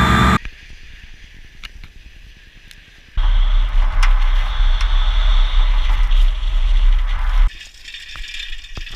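Action-camera road noise: quiet riding noise with a few clicks, then about three seconds in a loud steady rumble and rushing noise for about four seconds while the camera speeds after a car on a dirt road, then quieter riding noise again.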